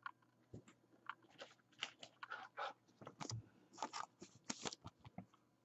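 Thin clear plastic rustling and crinkling as a trading card is handled, in a string of short, irregular scratchy sounds.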